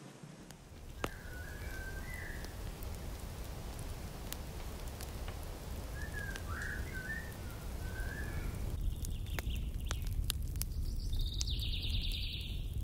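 Small birds chirping in two short bursts over a steady low rumble, with scattered clicks; near the end a higher, steady trill.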